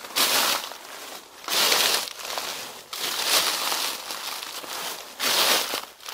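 Footsteps crunching through deep dry fallen leaves, about four loud rustling steps with softer shuffling of leaves between them.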